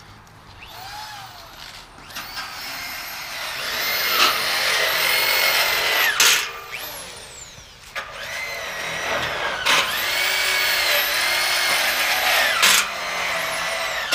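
Cordless drill running under load into a steel carport base rail, in two long runs of about four seconds each after a short one. The motor pitch rises, holds, then falls away in each run, and each ends in a sharp click.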